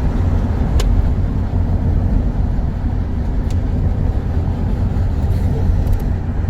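Double-stack freight train rumbling past with a steady, loud low rumble, with two short sharp clicks, one about a second in and one midway.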